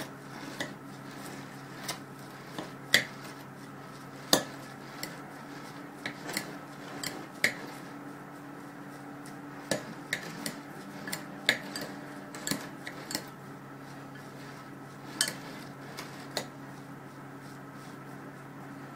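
Hands tossing a shredded Chinese cabbage salad in a glass bowl: irregular clicks and knocks of fingers against the glass amid the vegetables, stopping near the end. A steady hum runs underneath.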